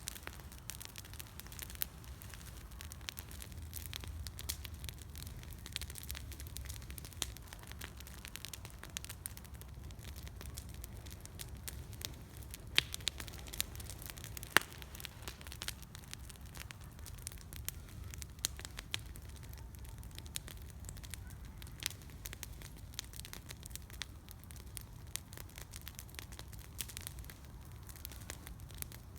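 Small campfire crackling steadily with scattered pops, two sharper ones a little before and just after the middle.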